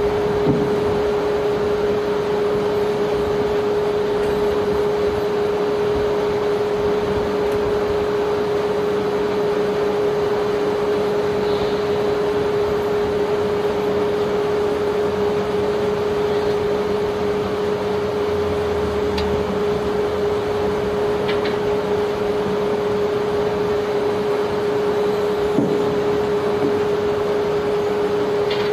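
Barge machinery running steadily: an even mechanical hum with one constant mid-pitched whine over a broad rushing noise.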